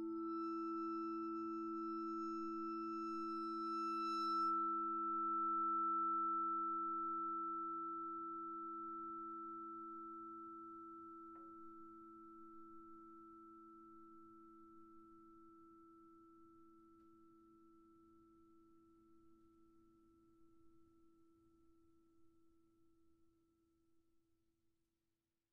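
Yamaha vibraphone's closing chord left ringing, with one high note bowed so that it swells for a few seconds. The whole chord then dies away slowly, fading out just before the end.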